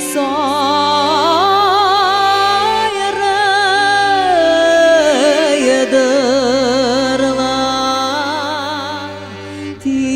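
A woman singing a folk song with wide vibrato, accompanied by two accordions holding chords and bass notes. Her phrase trails off near the end before the next line begins.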